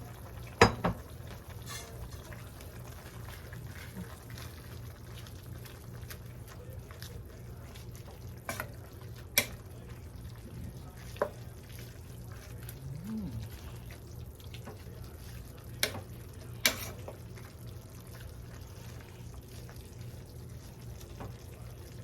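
Pot of soup cooking over a steady low hum, with a utensil clinking against the pot about six times, loudest about half a second in.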